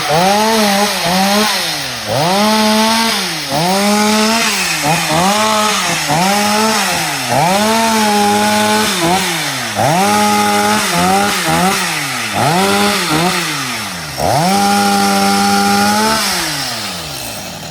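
Two-stroke chainsaw revved hard in about ten short bursts, each one climbing to full speed and falling back. Near the end comes one longer burst at full throttle before it drops back.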